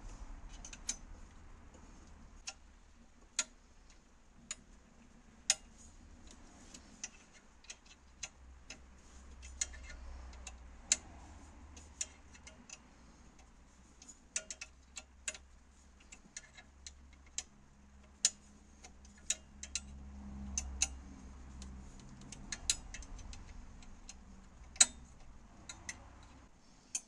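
Hand ratchet with a socket clicking as it turns bolts on an EGR valve: sharp, separate ticks at irregular spacing, roughly one a second, over low handling rumble.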